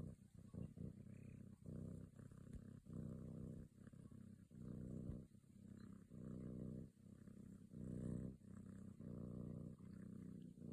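Kitten purring close up, a low rapid rumble that swells and fades with each breath, about once a second.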